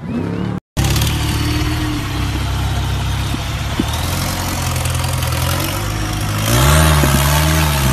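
Engine of a flat-fender jeep on large mud tyres, running steadily under load on a muddy climb. About six and a half seconds in it revs harder, its pitch rising and falling.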